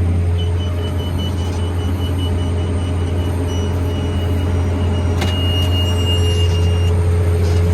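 New Holland T7040 tractor engine running steadily under load as it pulls a McHale F550 baler that is picking up and baling haylage, giving a constant low drone. A faint thin high whine comes and goes over it, and there is a single click about five seconds in.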